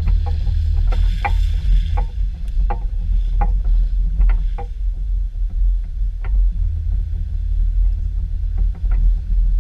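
Lifted Subaru Impreza wagon driving slowly over a leaf-covered dirt trail, heard from a camera mounted on the outside of the car: a steady low rumble, with scattered light clicks and knocks.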